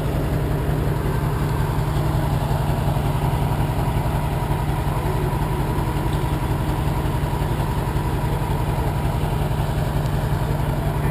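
Heavy diesel truck engine idling steadily with an even low throb.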